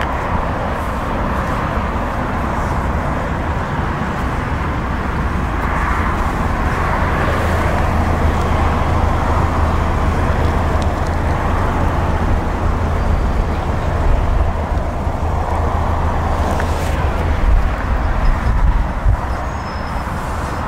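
Lifan X60's 1.8-litre VVT four-cylinder engine idling, heard at the exhaust as a steady low note.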